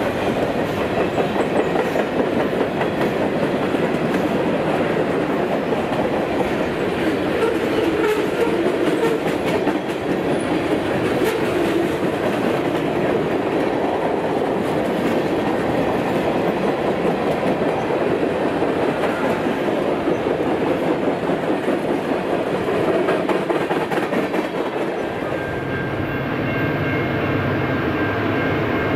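CN freight train of covered steel-coil cars and tank cars rolling past at speed: a steady rumble and clatter of wheels on the rails. Near the end it gives way to a steadier low hum with faint high tones.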